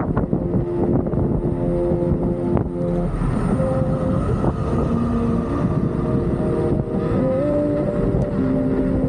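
Heavy wind rumble on the microphone while riding. Under it, a melody of held notes, music playing along.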